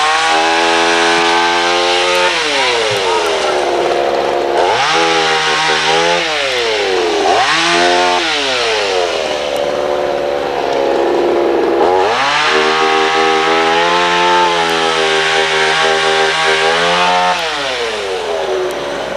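Two-stroke chainsaw revved up to high speed and let back down to idle four times; the last burst of revs is held longer, for about five seconds.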